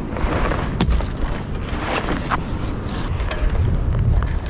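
Wind buffeting the microphone with an uneven low rumble, broken by a few sharp clicks and knocks as the metal halyard shackle is handled and clipped onto the mainsail's headboard and the sail cloth is moved.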